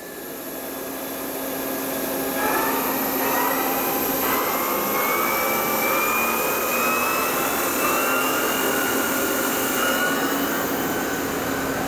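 Toshiba BTD-110.R16 CNC horizontal boring machine's BT50 spindle spinning up to 1500 rpm and running. It is a steady machine whir that grows louder over the first couple of seconds, with a whine that rises slowly in pitch.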